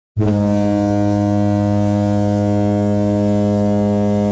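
Ship's horn sounding one long, steady low blast that starts abruptly.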